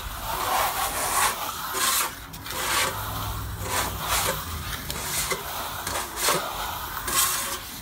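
Steel plastering trowel scraping and rubbing over a smooth stucco finish coat in repeated strokes, about one a second. The coat is being hard-troweled as it dries to make it smooth.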